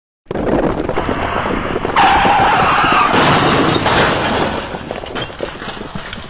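Earthquake sound effect: a deep rumble with a clatter of crashing impacts that starts suddenly and loudly. About two seconds in it turns harsher and louder, then fades over the last seconds.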